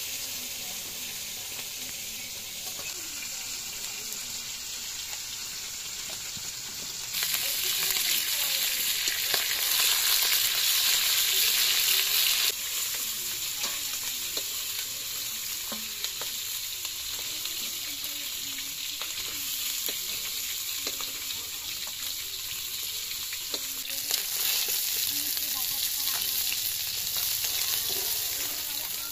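Pieces of catfish frying in hot oil in an iron wok, a steady sizzle with the scrape and clink of a metal spatula turning and lifting them out. The sizzle turns suddenly louder about seven seconds in, eases back a few seconds later, and rises again near the end.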